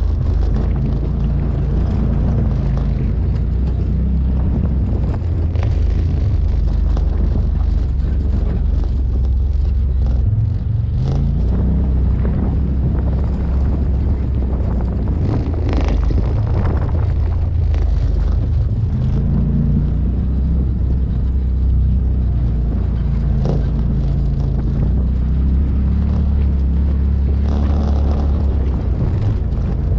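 Off-road vehicle's engine running under way on a rough dirt trail, a steady drone whose pitch rises and falls with the throttle, with a few sharp knocks.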